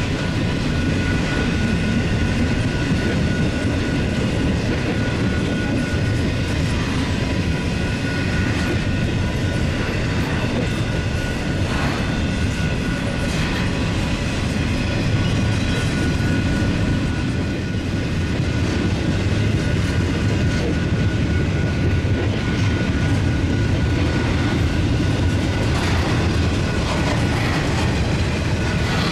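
Freight train cars rolling past: a steady rumble of steel wheels on rail with occasional clatter and a faint steady high-pitched ring above it.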